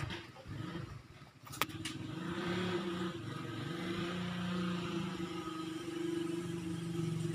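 Motorcycle engine idling steadily, with a single sharp click about one and a half seconds in.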